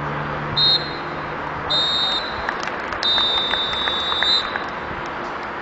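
Referee's whistle blown three times: two short blasts and then one long blast, the usual signal for full time. A steady outdoor background hiss runs underneath.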